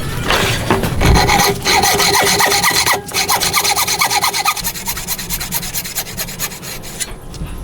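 A hand tool scraping wood in a fast run of short, even strokes, like a fine saw or rasp. The strokes are loudest in the first few seconds and stop shortly before the end.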